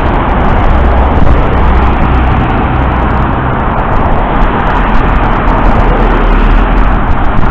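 Steady road traffic: cars and SUVs driving past close by on a multi-lane street, loud and continuous with a heavy low rumble, heard through the Polaroid Wave camera's built-in microphone.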